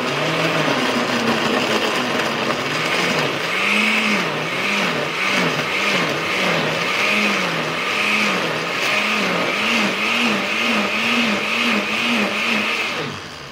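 Osterizer blender running, liquefying green apple pieces, aloe vera gel and water. The motor's pitch wavers up and down in a regular rhythm that gradually quickens as the mixture churns, and the motor cuts off shortly before the end.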